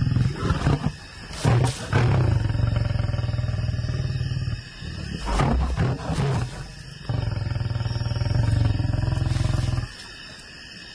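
Male lion growling and roaring: a run of long, deep growls with short breaks between them, stopping about a second before the end. The growls are a male lion's threat toward people he has not accepted.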